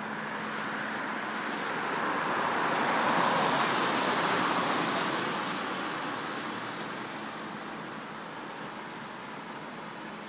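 A car passing on the road: the noise swells to a peak about three to four seconds in and then fades away, over a steady background of traffic.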